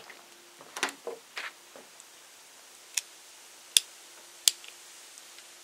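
Heritage Rough Rider .22 rimfire single-action revolver being handled: a few soft knocks as it is picked up, then three sharp metallic clicks of its action being worked, the last two the loudest.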